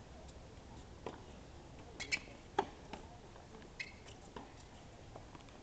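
Tennis practice rally on a hard court: several sharp pocks of rackets striking the ball, the loudest about two and a half seconds in, with short squeaks of tennis shoes on the court.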